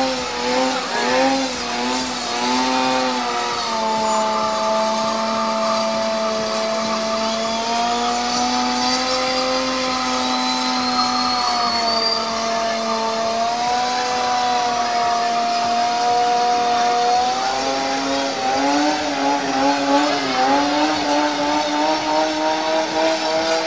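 Toyota 2JZ straight-six engine held at high revs under load during a long burnout, its pitch wavering up and down at first, then holding fairly steady before wavering again near the end, with tyres spinning on wet tarmac.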